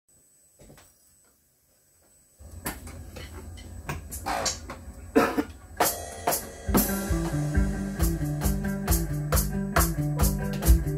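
Rock music with a drum kit: after a near-silent start, a low droning intro comes in about two and a half seconds in with a few ringing cymbal crashes, and a little before seven seconds in the full band with a steady drum beat and bass kicks in. The drums come from an electronic drum kit played along with the backing track.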